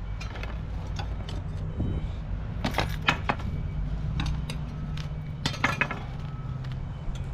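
Small hard pieces of debris clinking and rattling as they are handled. There is a cluster of sharp clinks about three seconds in and another just before six seconds, over a steady low hum.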